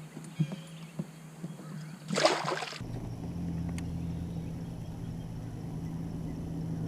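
Sounds of a kayak on a river: a few light knocks, a short splash of water about two seconds in, then a steady low rumble.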